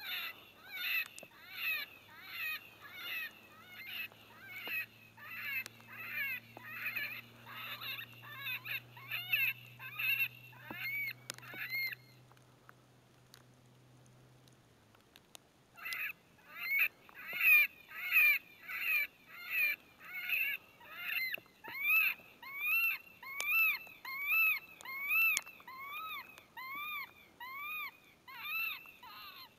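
Electronic predator call playing a looped animal distress sound: short, high, rising-and-falling cries at about two a second. They break off about twelve seconds in, resume about four seconds later, and come a little more slowly toward the end.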